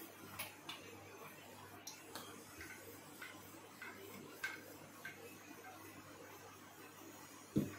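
Wooden rolling pin rolling out dough on a smooth countertop: faint, irregular light taps and clicks, with one louder thump near the end.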